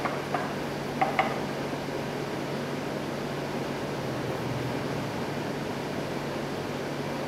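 A few light knocks of the blue wooden geometric solids against their wooden box as they are lifted out, clustered in the first second and a half, over a steady hiss and low hum.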